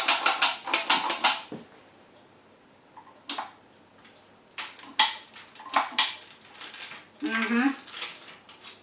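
Stainless-steel cookie press being worked: a rapid run of clicks for the first second or so, then a few separate clicks and knocks as it is pressed down onto the baking sheet.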